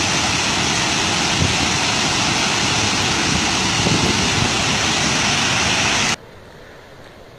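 Loud, steady rush of floodwater pouring down a dam spillway through fully opened crest floodgates. It cuts off abruptly about six seconds in, leaving only a faint outdoor background.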